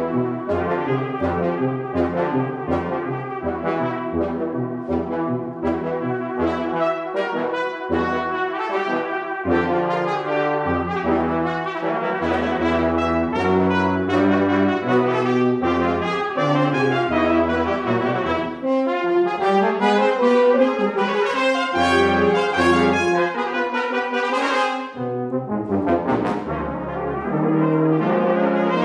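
Brass quintet of two trumpets, horn, trombone and tuba playing a fast piece. For the first several seconds a short low bass note repeats about twice a second under the higher parts. Later the low part moves to longer held notes, with a brief drop in loudness near the end.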